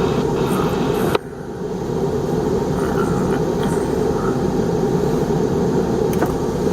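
Steady vehicle noise from inside a truck cab, a low rumble and hiss. About a second in there is a sharp click, the noise drops suddenly and then builds back up.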